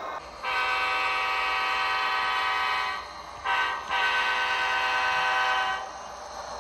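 Diesel locomotive air horn played by the DCC sound decoder of an Athearn HO-scale GP40-2 model, blowing three blasts: long, short, long.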